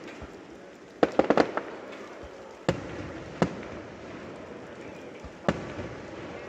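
Fireworks exploding: a rapid cluster of several bangs about a second in, then three single bangs spaced a second or two apart.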